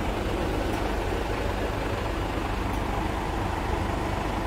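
A truck's diesel engine idling steadily.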